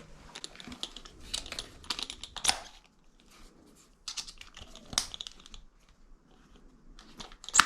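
Irregular small clicks and taps of hand tools and parts being handled.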